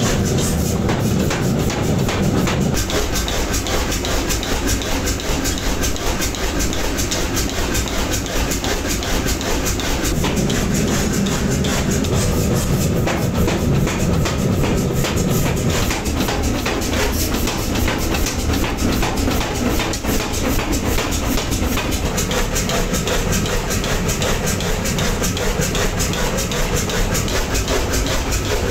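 Continuous mechanical clatter and rumble of running metalworking machinery: a dense, rapid rattling over a low hum, at a steady level.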